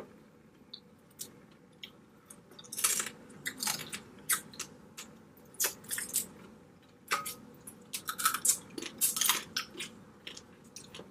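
Close-miked eating of a blue crab and shrimp boil: chewing with irregular sharp cracks, crunches and wet smacks as the seafood is bitten and worked through, busiest about three seconds in and again near the end.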